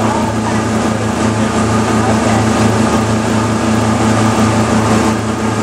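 Tour boat's engine running steadily under way: a low, even hum over a steady rushing noise.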